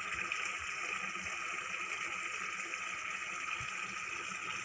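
Lauki and chana curry simmering in a pan as it comes to the boil: a steady hiss with a few faint bubbling pops.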